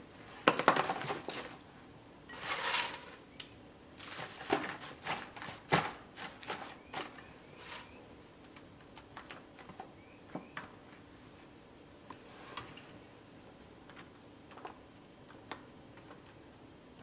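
Kraft paper takeout box handled and lettuce leaves dropped into it, rustling and crinkling in a few loud bursts, then a run of lighter clicks and taps that grow sparser as sliced yellow pepper and red onion are laid on the salad.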